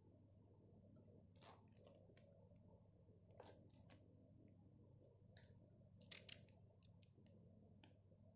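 Faint, scattered light clicks and scrapes of small plastic items being handled, a clear plastic cup and packaging, with the loudest cluster of clicks about six seconds in.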